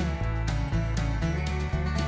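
Background music: an upbeat country-style tune with guitar, a steady beat and a bass line.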